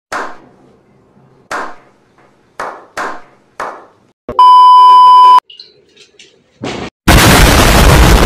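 Edited-in sound effects: five sharp hits, each with a brief ringing tail, then a loud one-second censor bleep at a steady pitch about four seconds in, then a loud explosion blast from about seven seconds in.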